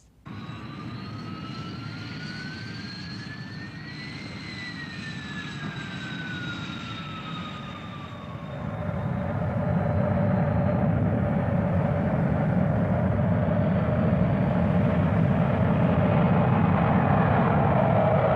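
Jet aircraft engines starting up: a whine with tones gliding up and down, then about eight seconds in a louder, steady jet roar builds and holds.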